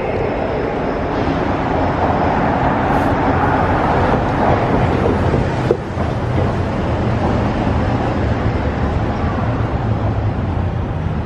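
Steady road-vehicle noise, engine and tyre sound from cars on the ramp, with a low engine hum growing stronger in the second half as a car approaches.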